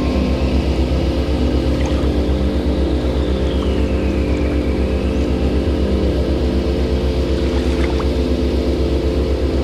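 A mountain stream rushing over rocks and small cascades, blended with a low, steady, evenly pulsing ambient drone of held tones. A faint high tone rises and falls slowly in the first half.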